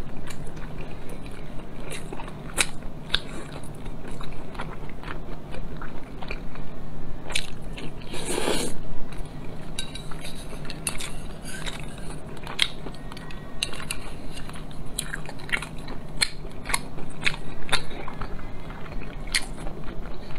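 Close-miked chewing of braised pork belly, with many small sharp mouth clicks and smacks spread through, and one brief louder burst of noise about eight seconds in.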